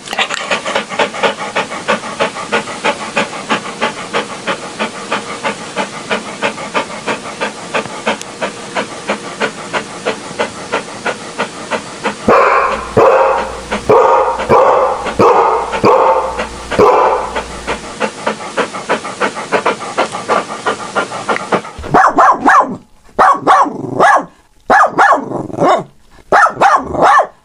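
A dog panting fast and steadily, about three breaths a second with a breathy hiss. About twelve seconds in, louder barking takes over, and near the end it comes in short separate bursts with gaps between them.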